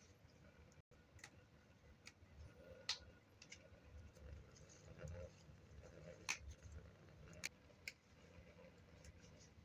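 Fresh herb stems snapped and leaves picked off by hand: a handful of faint, sharp snaps over soft leaf rustling, close to silence.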